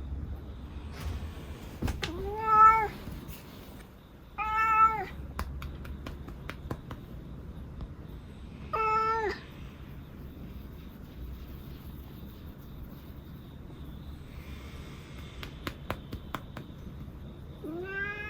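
An elderly house cat meowing four times, each meow short and rising then falling in pitch, spread out with long gaps between them.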